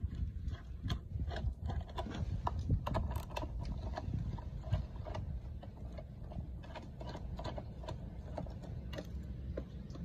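Hand bit ratchet clicking in short irregular runs as it undoes the screws of a plastic rotary isolator cover, with a louder click near the end.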